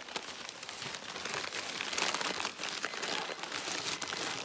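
Crumpled paper wrapping crinkling and rustling continuously as it is pulled off a gift by hand.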